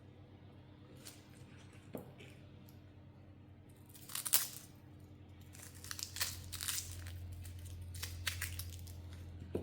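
Dry onion skin crackling and tearing as the papery outer layer is peeled off by hand, in short bursts, loudest about four seconds in and again through the second half. A low steady hum runs underneath.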